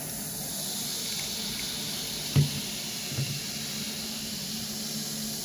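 Lemon juice poured from a plastic squeeze bottle into a stainless-steel bowl of baking soda, with a steady fizzing hiss from the acid–base reaction giving off carbon dioxide. A knock about two and a half seconds in is the loudest sound, with a smaller knock just after.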